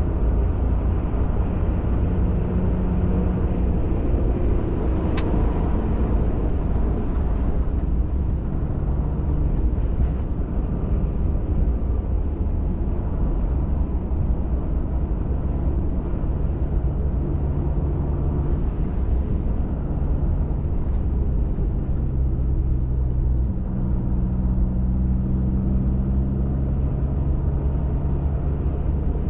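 Pickup truck driving on a trail: a steady low rumble of engine and tyres, the engine note shifting in pitch now and then as the speed changes. There is one sharp click about five seconds in.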